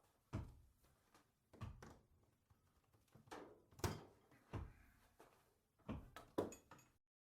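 A series of about seven sharp knocks and thuds, spaced irregularly about a second apart, each with a short ring, from hand work with timber or tools in a workshop; the sound cuts off abruptly near the end.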